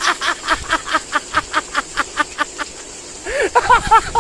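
A person laughing in a long rhythmic run of short 'ha' pulses, about five a second. The laughter breaks off a little before three seconds in, then comes back in a louder burst near the end.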